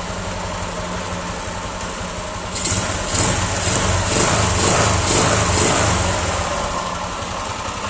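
Honda CG Titan's single-cylinder four-stroke engine idling, getting a little louder about two and a half seconds in and then easing back. It has a mechanical noise that the owner thinks could be a valve still slightly stuck after years of standing.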